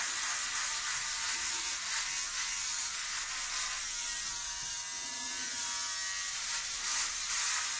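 Electric head shaver buzzing steadily as it is run over the back of the scalp.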